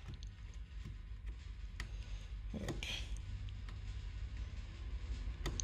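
Fingers picking at the edge of the protective plastic film on a painted Lexan RC car body, giving scattered small clicks and a brief crinkle about three seconds in, over a low rumble of handling noise.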